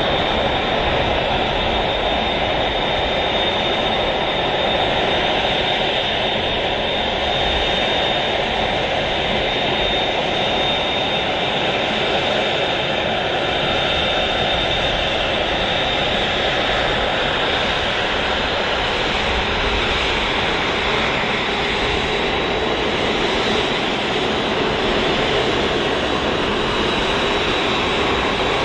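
Airbus A380-800's four jet engines running, a steady rush of noise with a thin, high, steady whine over it.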